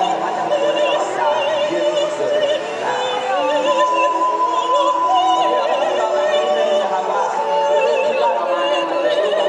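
Music with a singing voice holding long notes with a strong, wavering vibrato.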